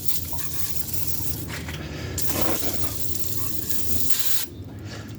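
Degreaser being sprayed onto an engine bay in one steady spray that stops suddenly near the end.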